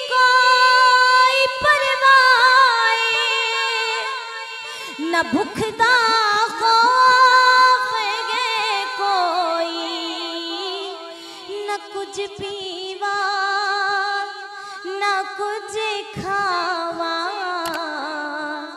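A woman singing a devotional naat solo into a microphone, without instruments: long held notes bending with ornaments, the melody sitting lower in the second half.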